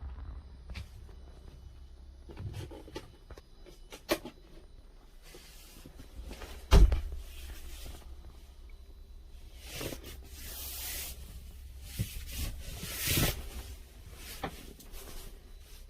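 Cupboard doors and latches inside a camper-van motorhome being opened and shut: scattered clicks and knocks, a sharp bang about seven seconds in, and a few short swishing slides later on.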